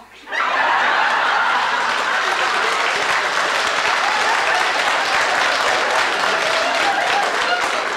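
Audience applause, starting suddenly and holding steady, dying down near the end.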